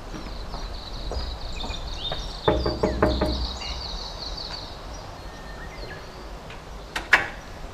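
Knocking on a metal grille door: a quick cluster of raps with a brief metallic ring, about two and a half seconds in. A bird twitters rapidly in the background, and near the end come two sharp clicks.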